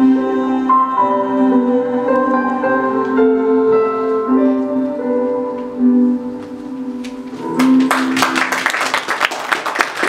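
Piano playing the closing chords of a song, then the audience breaks into applause near the end.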